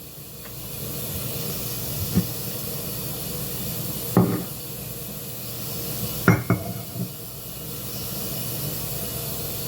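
A steady hiss, with a few scattered light knocks.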